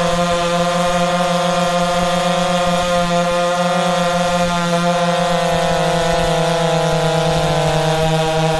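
Professional two-stroke chainsaw held at full throttle while cutting through a large log, a steady high engine note. The pitch sags a little about seven seconds in as the chain loads in the cut, then climbs back.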